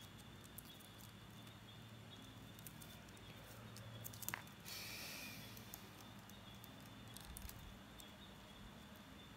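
Quiet handling of coloured steel craft wire and small wooden sticks: a few light clicks and taps, with a sharp click and a brief rustle about halfway through, over a faint steady high whine.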